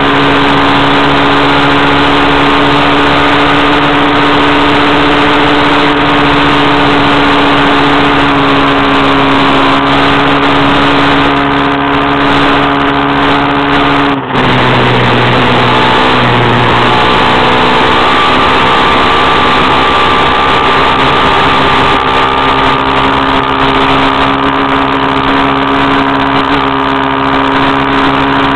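Vehicle engine running loud and steady while driving on a gravel road. About halfway through, the sound dips for a moment and the engine note drops, then climbs back up over the next few seconds, as at a gear change.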